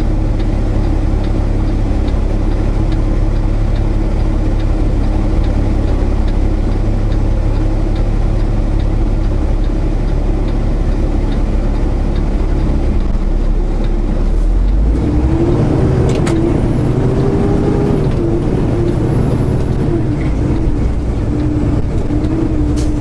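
Semi-truck engine and cab noise heard from inside the cab while driving. It drones steadily, and about two thirds of the way through the engine note changes and a wavering tone comes in as the truck's speed changes.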